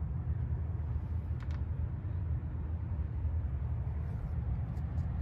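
Vehicle engine idling with a steady low rumble, with a few faint clicks about one and a half seconds in and near the end.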